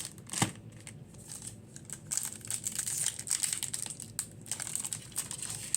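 Foil booster-pack wrappers crinkling as they are handled. There is one sharp knock about half a second in, the loudest sound. From about two seconds in the crackling gets busier.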